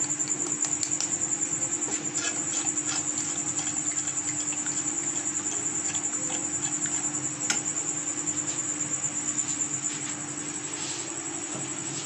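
A steady low hum with a faint high whine, and a few light clicks of a steel spoon against a steel pan as orange food colour is stirred into warm sugar syrup.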